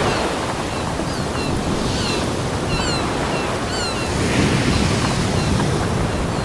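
Ocean surf washing onto a beach in a steady rushing hiss, with a wave surging in about four seconds in. A few short, falling bird chirps sound over it in the first half.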